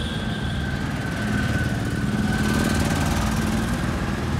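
A small engine running close by, over street traffic, growing louder from about a second in.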